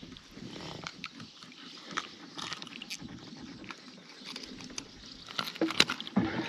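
Scattered small clicks and rustling as a caught zander is unhooked with pliers: metal pliers and lure hooks clicking together, with clothing rustle. The clicks come thickest in the last second or so.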